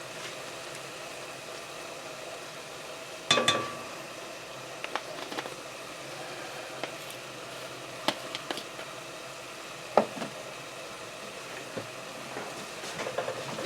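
Chicken pieces and spices frying in hot oil in a pot, a steady sizzle, while being stirred. A few sharp knocks of a utensil against the pot, the loudest about three seconds in with a short ring, and lighter clicks later.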